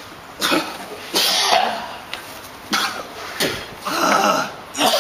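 A man coughing and groaning in several short bursts.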